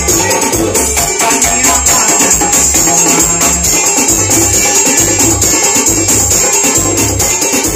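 A live band playing loud through PA speakers, with keyboards over a steady beat of fast ticking percussion and a repeating bass pulse.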